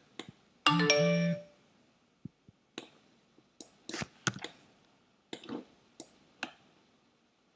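A short electronic chime with steady tones about a second in, followed by scattered sharp clicks and taps of a computer mouse and keyboard.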